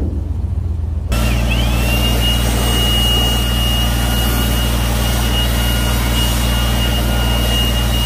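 An engine running steadily. About a second in the sound changes suddenly, and a high whine rises and settles to a steady pitch over the engine noise.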